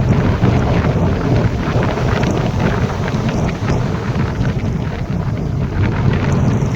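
Strong lakeshore wind buffeting the microphone with a heavy, continuous low rumble, over a rushing, crackling hiss that thins out near the end.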